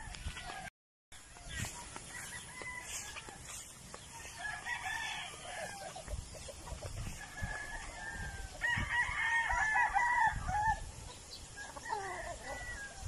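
Backyard chickens calling and clucking, with a rooster crowing. The longest and loudest call, about two seconds, comes a little past the middle.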